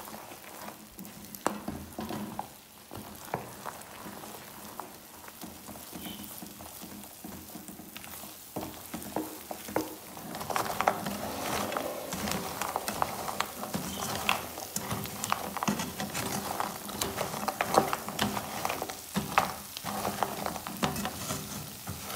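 A spoon stirring coconut cubes in a frying pan as the sugar syrup dries into a crystallized coating, with scraping and frequent clicks of the spoon and pieces against the pan over a faint sizzle. The stirring grows louder about halfway through.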